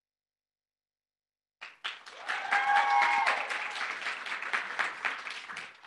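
A small group clapping, starting about a second and a half in and fading out near the end, with a short cheer from one voice about a second after the clapping begins.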